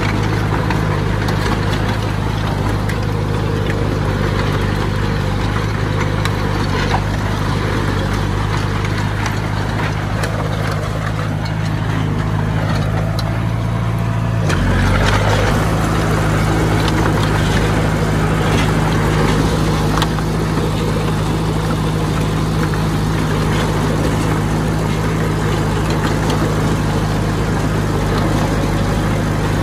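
Heavy diesel engine of an earthmoving machine running steadily, with scattered metallic knocks. About halfway through the engine note shifts and gets a little louder, as when the machine takes up load.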